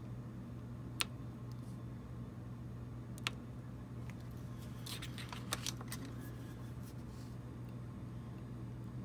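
Hobby knife pressed down along a steel rule, clicking as the blade cuts through the reflective striping sheet without going through its backing. Two sharp clicks come about one and three seconds in, then a cluster of lighter clicks around five seconds in, over a steady low hum.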